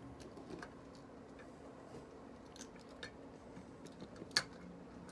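Small metal toy-train parts being handled on a work surface: faint scattered clicks and taps, with one sharper click about four seconds in.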